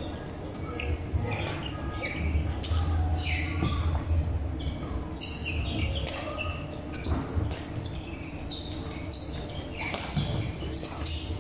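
Badminton rally in a large echoing sports hall: sharp pops of rackets striking the shuttlecock, and short high squeaks of court shoes on the wooden floor.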